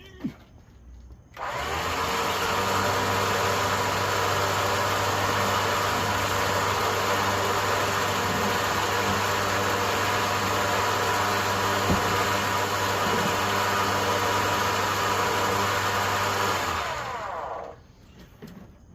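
Harbor Freight 9000 lb electric winch motor running and spooling cable onto the drum, a steady hum and whine. It starts abruptly about a second and a half in, runs for about sixteen seconds, then winds down in pitch and stops near the end.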